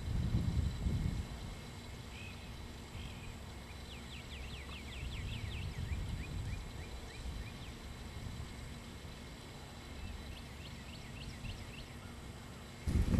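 Wind rumbling on the microphone in gusts, with a bird singing quick runs of short high chirps, one about four seconds in and another near the end.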